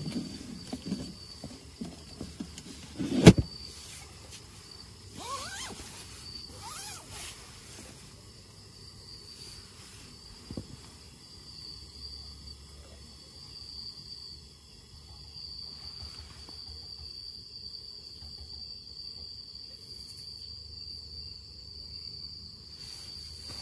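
A steady high-pitched chorus of crickets that swells and fades. Over it, a person rustling about inside a tent, with one sharp knock about three seconds in.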